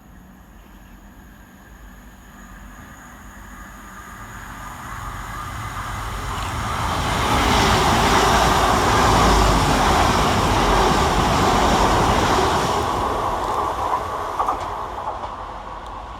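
A diesel or electric multiple-unit train approaching and running past the platform, getting louder over the first half, loudest for several seconds, then fading, with a couple of sharp clicks near the end.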